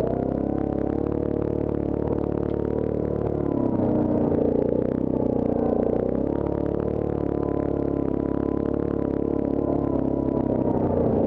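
Yamaha Grizzly ATV's single-cylinder engine running under way on a dirt trail, with light rattling over the rough ground. The engine note dips and then climbs again about four to six seconds in, as the throttle changes.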